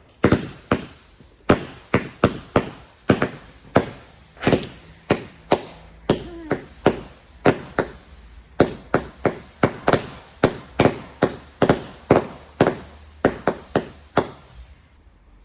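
A multi-shot firework firing a rapid, uneven series of sharp bangs, about two to three a second, that stops shortly before the end.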